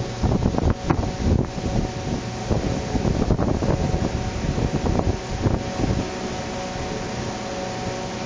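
Industrial filter machinery running steadily: a low rumble with a few steady humming tones. Irregular bumps of wind or handling noise on the microphone come through the first six seconds, then the noise settles.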